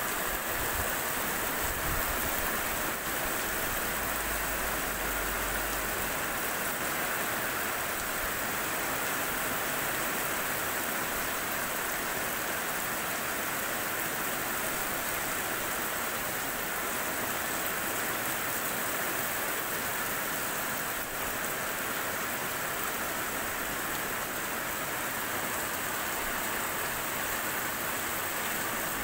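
Heavy rain falling steadily on a paved street, an even, unbroken hiss of the downpour.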